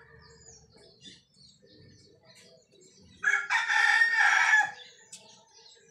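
A rooster crowing once, a single long call starting about three seconds in.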